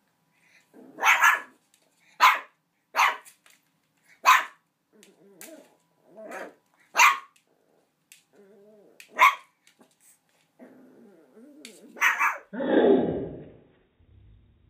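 Small Boomer puppy yapping at a big rawhide bone that alarms him: about seven sharp, high barks a second or more apart, with softer growls between them and a longer, lower growl near the end.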